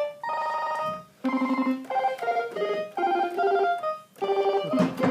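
SammichSID synthesiser with two 6582 Commodore 64 SID sound chips playing an arpeggio: a run of short pitched notes stepping between pitches several times a second, broken by brief pauses, with the chiptune tone typical of the C64.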